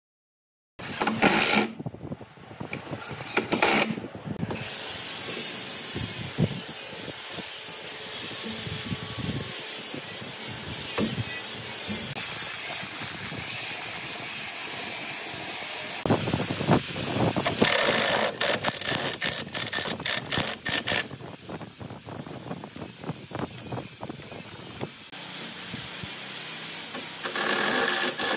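Wooden parts being handled and knocked together during assembly, with many short clicks and knocks. Later on a cordless drill-driver runs in bursts, the last one near the end.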